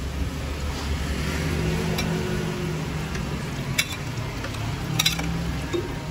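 Oyster fritters deep-frying in a wok of hot oil, sizzling steadily, with a few sharp clinks of a metal ladle against the wok and a low hum underneath.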